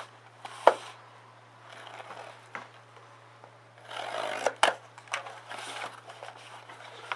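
Cardboard shipping case being opened by hand: tape tearing and flaps scraping and rubbing in short bursts, with a sharp knock less than a second in and a longer stretch of tearing and rustling a little past the middle.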